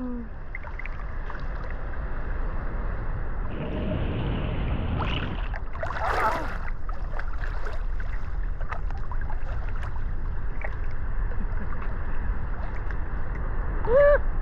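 Ocean surf washing in the shallows with a steady low rumble of wind on the microphone; a wave surges through about four seconds in. A brief shout rises over it about six seconds in and again near the end.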